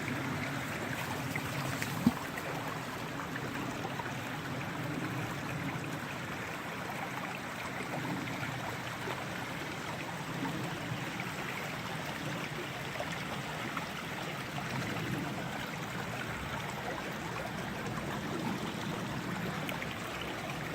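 Stream water flowing steadily, with a single sharp click about two seconds in.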